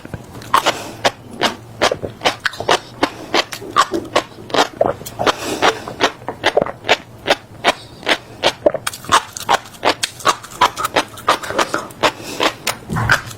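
Close-miked mouth chewing, crunching seeds: a rapid run of crisp cracking crunches, about four or five a second.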